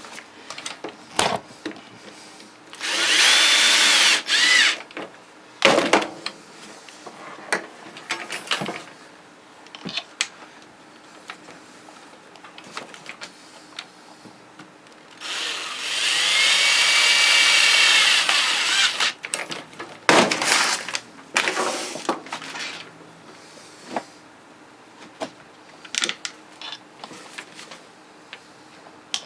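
Power drill driving screws back into a reciprocating saw's housing. The motor whines in two runs: a short one a few seconds in, and a longer one of about four seconds near the middle. Clicks and handling clatter come in between.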